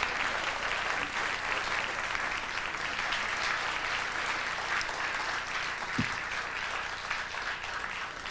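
Concert audience applauding, the applause thinning and fading toward the end, with a single low thump about six seconds in.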